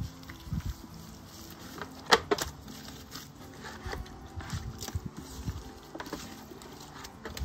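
Gloved hands rubbing a wet chile-and-garlic paste into raw pork rib racks and turning them in a stainless steel pan: soft wet handling noise with scattered clicks and knocks, the sharpest about two seconds in.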